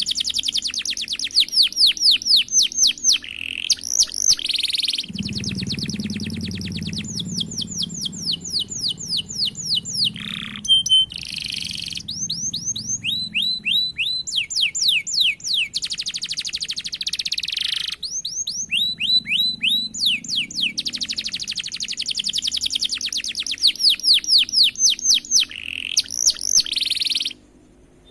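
Domestic canary singing long rolls: fast trains of repeated sweeping notes, one tour running into the next. The song cuts off suddenly near the end.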